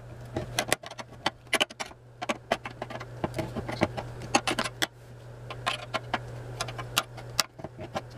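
Sealed steel ammunition tin being cut open along the edge of its lid with a handheld opener: a quick, irregular run of metallic clicks and crunches as the blade bites through the thin sheet steel.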